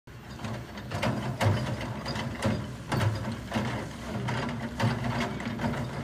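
Komatsu PC160LC hydraulic excavator running, a steady low engine drone under irregular clattering knocks about once or twice a second while it works its bucket in the water.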